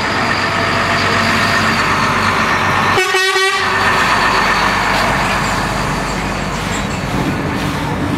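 Lorry driving slowly past close by, its diesel engine running steadily, with a short horn toot about three seconds in.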